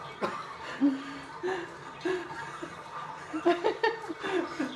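A person laughing lightly in several short chuckles, coming closer together near the end.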